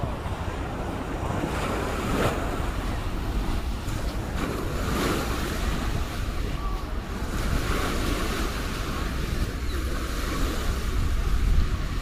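Small waves breaking and washing up on a sandy beach in a steady series of swells, with wind buffeting the microphone.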